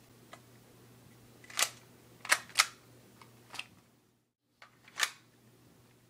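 A handful of sharp, irregular clicks and snaps from airsoft gear being handled, the loudest two coming close together, over a low steady hum.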